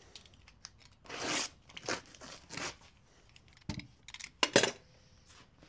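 Hands working at a manual screen-printing press: a few short rustling, scraping swishes, then several sharp clicks and a louder knock a little past halfway, like metal parts of the press being handled.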